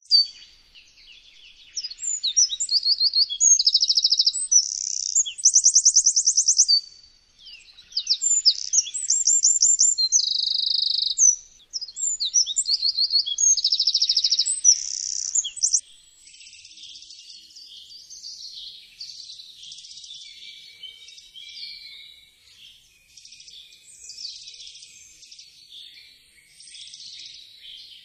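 Eurasian wren singing: loud, rapid, high-pitched song made of fast trills and warbles, in two long bouts with a short break between them. After about sixteen seconds a fainter, more jumbled run of high notes continues.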